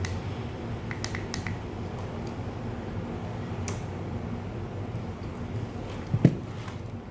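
Handling of a 3D printing pen: a few sharp little clicks and taps, then a louder dull knock about six seconds in, over a steady low hum.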